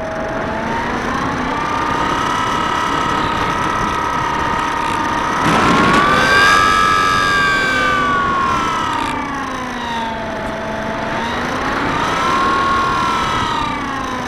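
Electric motor and propeller of a Bixler 2 RC plane whining in flight, heard from on board, the pitch rising and falling as the throttle changes. About six seconds in a rush of air noise joins it as the whine peaks at its highest pitch, and the whine dips lowest a little after ten seconds.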